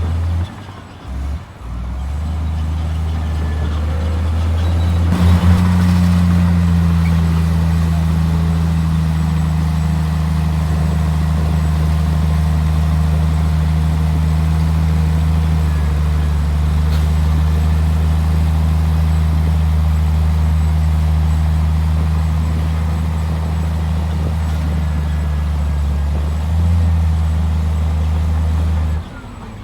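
Heavy diesel engine of earthmoving machinery running steadily, with a sharp clank about five seconds in. The sound dips briefly about a second in and again just before the end.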